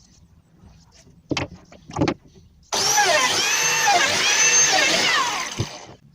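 Two knocks, then a handheld electric power tool's motor starts abruptly and runs for about three seconds, its pitch rising and dipping as it works before it winds down.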